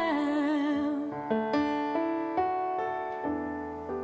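A woman's held sung note with vibrato fades out in the first second. Then a piano plays a slow fill, single notes struck one after another and left ringing, growing gradually quieter.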